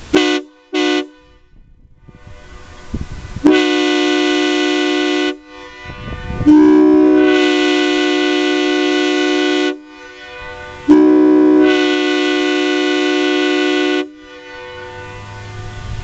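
Nathan Airchime K3HA three-chime train horn sounding a chord: two short toots, then three long blasts of about two, three and three seconds. The second blast slides up to pitch as it starts.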